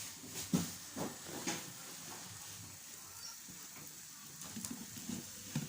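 A few light knocks and clatters of kitchen utensils, three in the first second and a half and a few more near the end, over a steady faint hiss.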